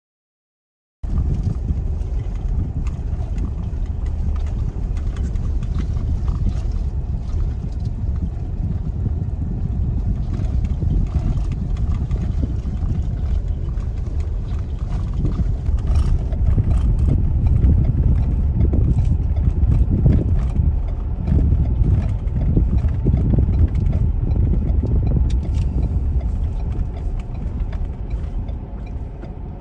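Strong wind buffeting the microphone: a loud, low rumbling roar that starts about a second in, with scattered light clicks and flutters over it.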